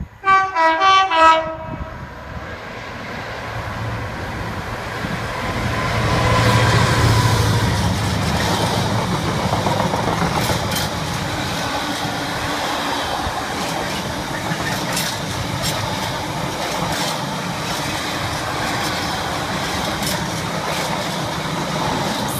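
Freight train horn sounding a quick run of short blasts, then the train running through, its empty flat wagons rumbling steadily past with wheels clicking over the rail joints.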